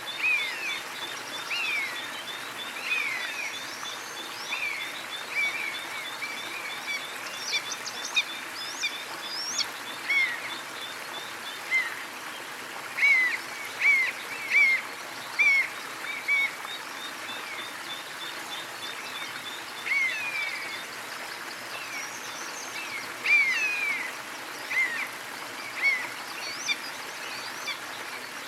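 Steady rush of a small waterfall, with birds calling over it in short, repeated downward-sweeping chirps, loudest around the middle and again near the end. A fast, even ticking trill runs through the first dozen seconds and returns briefly later.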